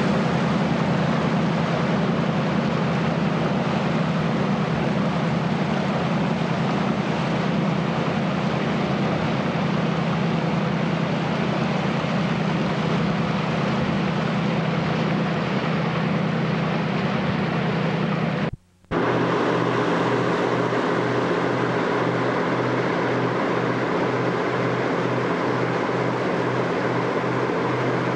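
Harbor cruise boat's engine running steadily under a broad hiss of wind and water. The sound cuts out for a moment about two-thirds of the way through and comes back with a lower, pulsing hum.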